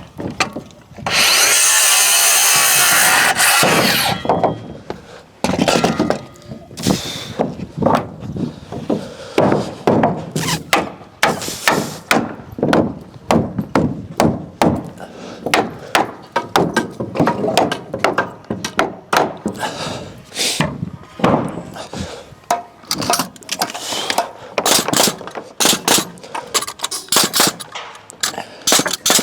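A power saw cuts through framing timber for about three seconds. It is followed by a long, irregular run of sharp knocks, a few a second, as timber wall framing is nailed together.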